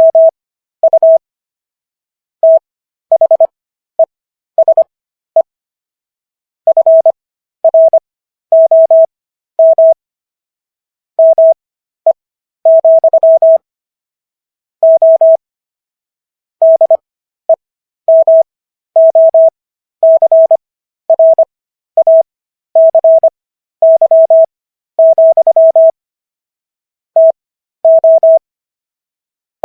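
Morse code practice tones: a single steady tone keyed on and off in dits and dahs. Characters are sent at 25 words per minute, with Farnsworth spacing widening the gaps between characters and words to an overall 15 words per minute.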